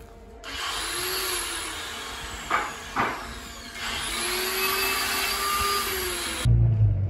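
A power tool running in a workshop: a steady hiss with a whine that rises and falls, and two sharp knocks about half a second apart midway. Near the end it gives way abruptly to a low rumble.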